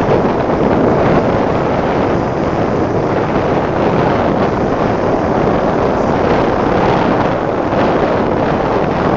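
A motorcycle riding at speed, its engine running steadily under loud, constant wind buffeting on the microphone.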